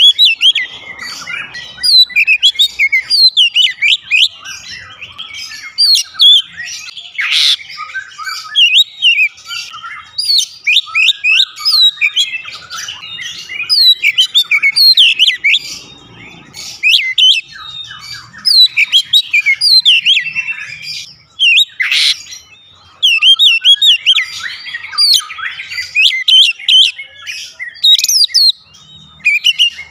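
Oriental magpie-robin singing vigorously: a fast, near-continuous stream of varied whistles, rising and falling slurs and chirps, with brief pauses.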